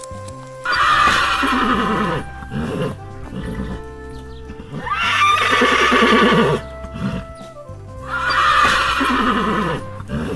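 Horse neighing three times, each whinny about two seconds long and falling in pitch, over steady background music.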